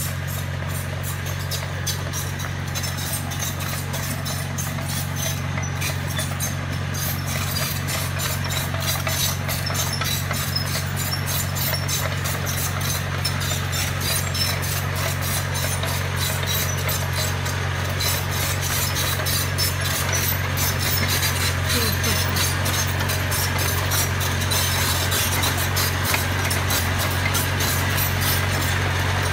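Small crawler bulldozer's diesel engine running steadily, with its steel tracks clanking, growing gradually louder as it approaches.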